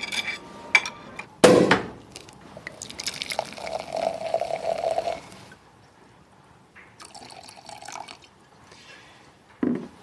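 Wine poured from a bottle into a wine glass, the liquid running for a few seconds, with a sharp knock shortly before.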